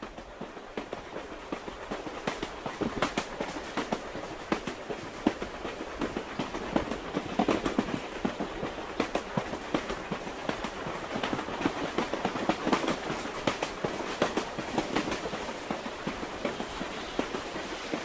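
Suburban electric train running on the rails, heard from inside the carriage: a steady rumble with many irregular clicks and knocks, getting louder over the first few seconds as the train gathers speed.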